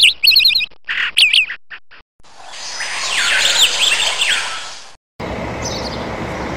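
Birds chirping in quick, high, sweeping calls, then a louder swell of many overlapping calls that fades out. About five seconds in it cuts to steady outdoor background noise with a few faint chirps.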